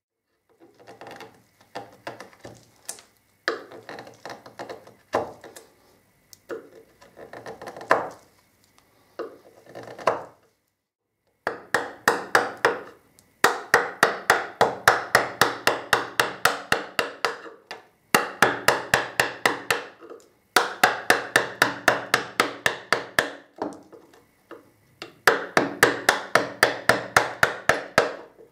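Wood chisel being driven with a mallet in runs of quick, light, even taps, about five a second, cutting a 5 mm-deep rebate along the edge of a wooden panel. The first half holds only quieter, scattered paring and scraping before the tapping starts about a third of the way in.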